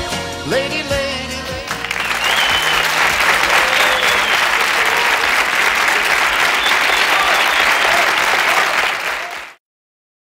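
A live band's closing notes for under two seconds, then an audience applauding steadily; the applause cuts off abruptly near the end.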